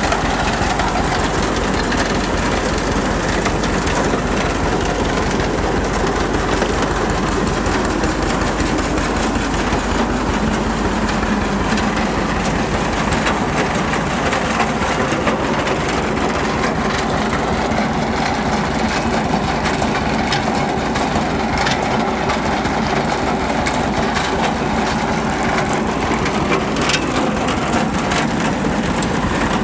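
A steel farm elevator's chain conveyor running steadily, driven through a PTO shaft by a John Deere tractor, with the tractor's engine running underneath.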